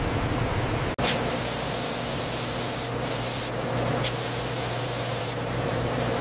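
Steady machinery hum under a spray-like hiss that switches on and off in three stretches, after the sound drops out for an instant about a second in.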